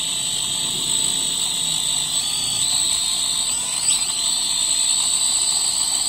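Small toy quadcopter's four electric motors and propellers spinning on the ground, a steady high-pitched whine whose pitch shifts slightly, with a brief knock about four seconds in.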